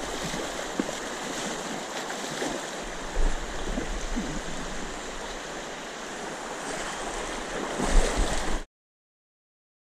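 Shallow river current rushing and churning past, with a few louder splashes from salmon thrashing at the surface. The sound cuts off abruptly to dead silence about nine seconds in.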